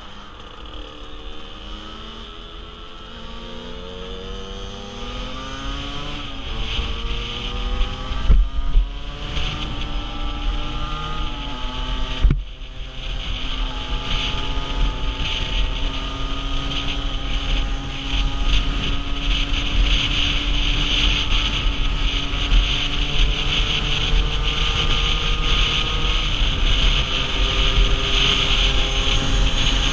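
A 50cc motorcycle engine pulling away, its pitch rising in steps as it is worked up through the gears. It then holds a steady note at cruising speed, with wind noise on the microphone growing louder.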